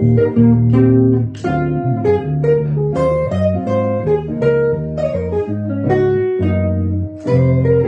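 Gibson ES-330 hollow-body electric guitar played with a loop pedal: sustained bass notes under plucked chords and single-note melody lines.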